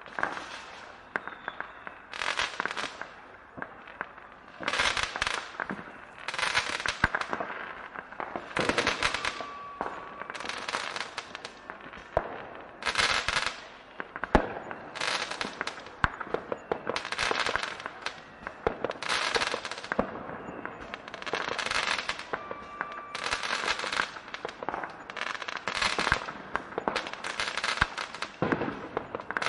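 Fireworks going off without a break: bursts of rapid, sharp cracks about every one to two seconds, overlapping one another, with a single louder bang about halfway through.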